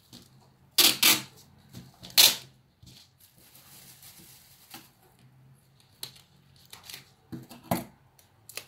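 Clear adhesive tape being pulled off its roll, torn and pressed onto crinkly plastic foil: sharp ripping crackles, loudest about a second in and again just after two seconds, then softer scattered crackles and rustling.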